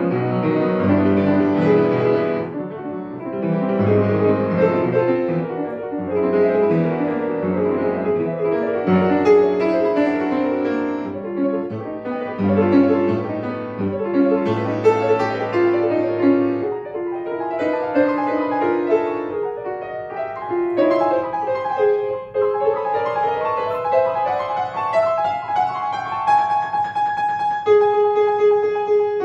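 Acoustic grand piano played solo in a classical piece: dense chords over a moving bass line, then a little past halfway the bass drops away and the melody climbs in a rising line of single notes.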